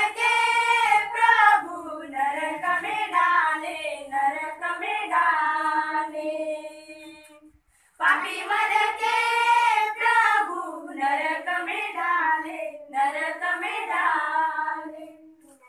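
A group of children and young women singing a song together without accompaniment, in two long phrases with a brief break about halfway through.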